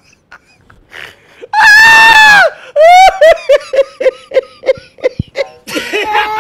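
A loud, high-pitched scream, held for about a second, starts about a second and a half in and drops away at its end. A rising yelp then runs straight into a quick string of short laughs, about five a second.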